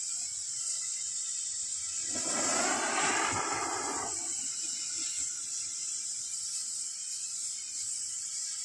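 Handmade pink flash torch burning with a steady high hiss. About two seconds in, a louder, rougher surge lasts about two seconds, then the plain hiss goes on.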